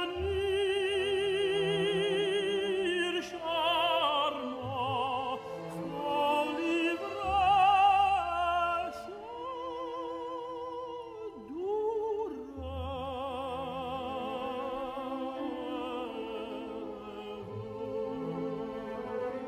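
Soundtrack music: an operatic voice singing long held notes with a wide vibrato over orchestral accompaniment.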